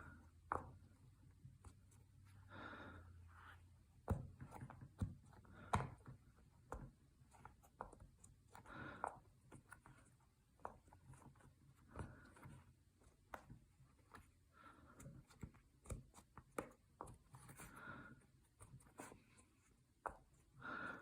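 Silicone pop it fidget toys being pressed: faint, irregular soft pops and clicks of the bubbles under the fingers, with a few short breathy hisses between them.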